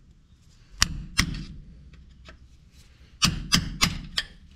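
Hammer striking a screwdriver wedged against a truck's PTO output shaft seal to knock the seal out: two blows about a second in, then four quicker blows near the end.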